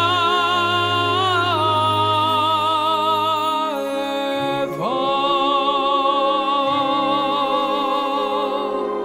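A man singing in an operatic style, holding long notes with vibrato over a sustained low accompaniment. The first held note steps down and ends about four seconds in; a second note swoops up about a second later and is held to the end.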